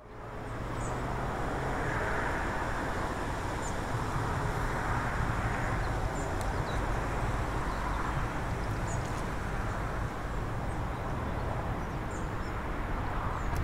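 Outdoor street ambience: a steady rumble of traffic with cars swelling and fading as they pass, and a few short, faint bird chirps.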